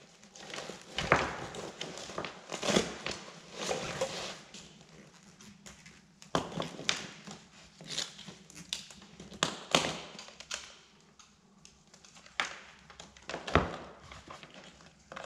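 Hands handling a Philips DreamStation CPAP machine, its hose and power cord: scattered plastic clicks, taps and rustling, with the sharpest knocks about a second in and near the end.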